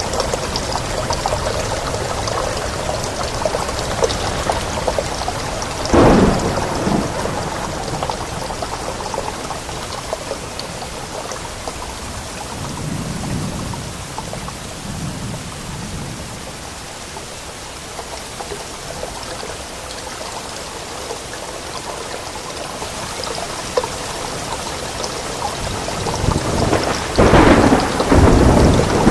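Steady rain with thunder: a sharp clap about six seconds in, a low distant rumble midway, and a louder, longer crash of thunder near the end.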